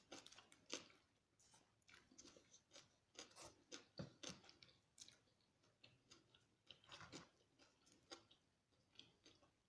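Faint close-up chewing of food by a person eating, with irregular soft crunches and wet mouth clicks.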